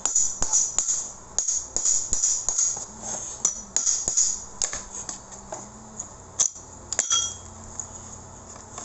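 Irregular metallic clinks and taps of tools and parts being handled while an electric demolition hammer is taken apart, quickly clustered at first and thinning out near the end.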